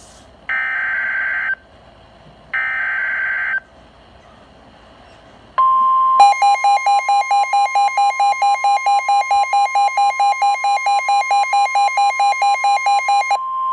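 NOAA Weather Radio emergency alert: the last two of the three SAME digital header bursts, short buzzy data tones, then about five and a half seconds in a steady 1050 Hz warning alarm tone begins, overlaid about half a second later by rapid electronic alarm beeping. The sequence signals that a new warning, here a severe thunderstorm warning, is being issued.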